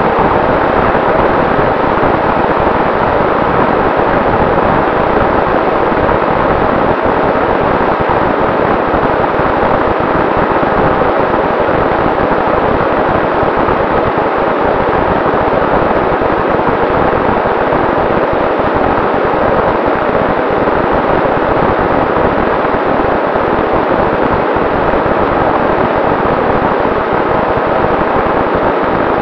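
Steady rush of airflow and propeller noise on the onboard camera of a Volantex Ranger RC plane in cruising flight, with a faint steady whine from its electric motor.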